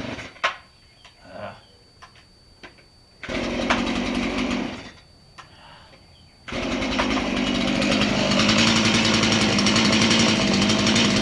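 Chainsaw running: a short burst of about a second and a half a few seconds in, then, after a brief pause, running steadily again through the rest.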